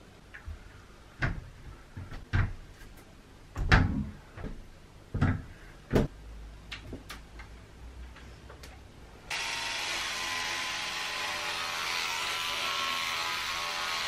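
A series of light knocks and clicks from small bathroom items being handled and set down. About nine seconds in, an electric toothbrush switches on and runs with a steady buzz and a brushing hiss.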